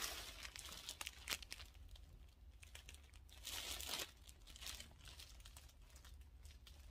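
Clear plastic poly bag around a folded T-shirt crinkling as it is handled and held up. Faint, irregular rustles and crackles, thickest about a second in and again around three and a half to four seconds in.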